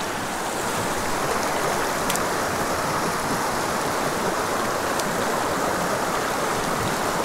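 Shallow creek water rushing steadily over gravel and stones.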